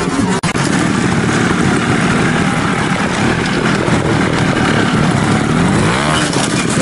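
Trials motorcycle engine running steadily, then revving up and down near the end as the bike is hopped up a rock ledge.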